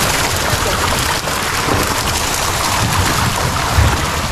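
Hundreds of crowded milkfish thrashing and splashing at the surface of a net pen, a continuous churning and spattering of water as the catch is scooped out with a hand net.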